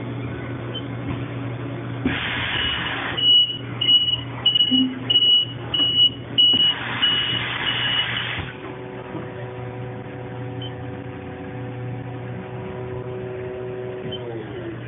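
Haas EC-400 horizontal machining center at work: about two seconds in a rush of air starts, with a high electronic beep repeating about eight times, roughly every 0.6 s, while the tombstone fixture pallet turns to a new face. Then a steady whine of several tones runs for about six seconds and sinks in pitch near the end, over a constant low hum.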